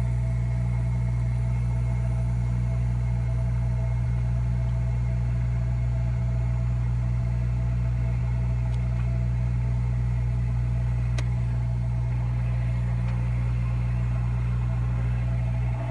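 Hot air rework station blowing steadily while desoldering a chip from a logic board: an even, unchanging hum.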